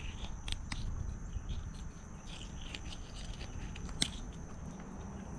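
Fishing pliers clicking a few times as they work a hook: two light clicks about half a second in and a sharper one about four seconds in, over a steady high insect drone.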